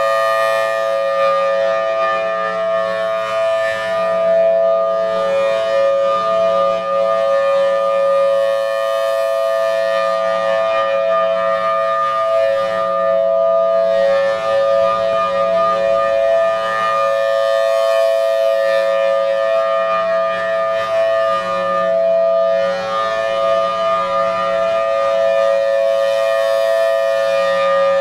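Federal Signal Thunderbolt 1003 dual-tone rotating warning siren sounding its steady Alert signal, a held two-note chord. It swells and fades about every nine seconds as the rotating head sweeps past.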